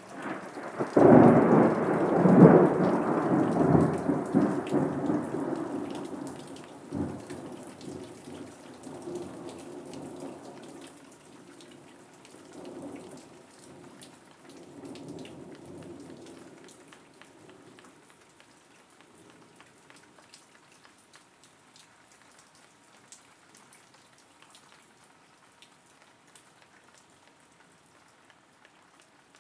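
Thunder: a clap breaks about a second in, loudest over the first few seconds, then rumbles on and fades away by about eighteen seconds, with a sharper crack near seven seconds. Steady rain falls throughout, with scattered drop ticks.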